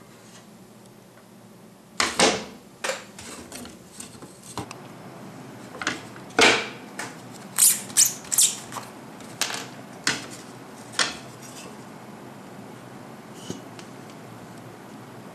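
Thin wooden boards and a plastic wood-glue bottle being picked up and set down on a wooden tabletop: about a dozen irregular knocks and clacks, starting about two seconds in and stopping about eleven seconds in.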